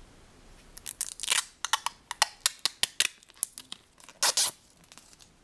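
Clear plastic protective film being peeled off a new phone's screen, crackling in a quick run of sharp crinkles from about a second in, with a longer crackle near the end.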